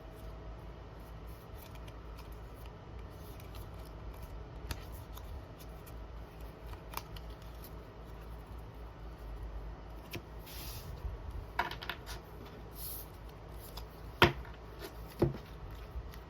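Close-up desk handling sounds: quiet scissor snips and rustles of paper or plastic, with two sharp clicks near the end.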